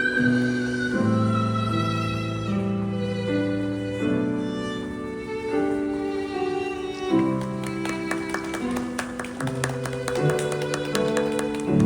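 Live curtain-call music from a stage musical's band, with violin-like bowed strings holding sustained notes of a slow melody that moves every second or so. A quick tapping rhythm joins in about halfway through.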